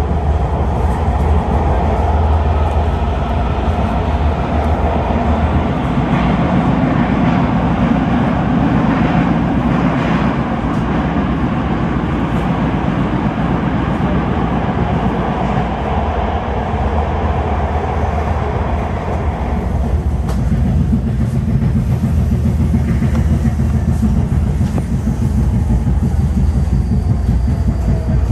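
MARTA rail car running along the track, heard from inside the car: a loud, steady rumble of wheels on rail with some clickety-clack. Near the end a whine falls slowly in pitch.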